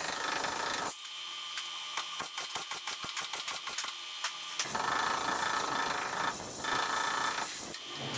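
MIG welder stitch-welding a replacement lower quarter patch panel on a 1973 Plymouth Duster: a short steady weld, then a quick run of short tack pulses for about three and a half seconds, then a longer steady weld of about three seconds that stops near the end.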